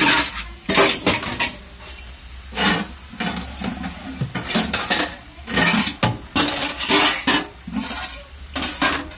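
Metal pots, bowls and a spoon clanking and clattering against each other as they are handled and stacked, a run of irregular knocks with brief ringing.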